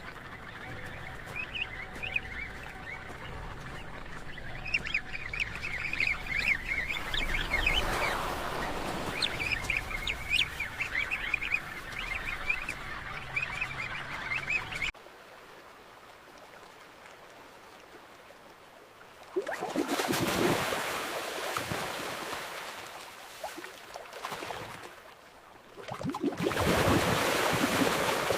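A penguin colony calls over a steady rushing background: many short overlapping honking calls. About halfway in the calls stop abruptly. Two swells of rushing water noise follow, one about two-thirds of the way in and one near the end.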